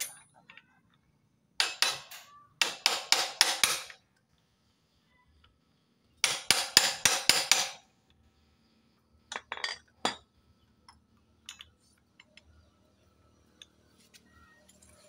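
Quick runs of hammer blows on a steel tool held against the clutch hub of a Honda Supra X 125 engine: three bursts of rapid, ringing metal strikes, then a few lighter clinks and ticks.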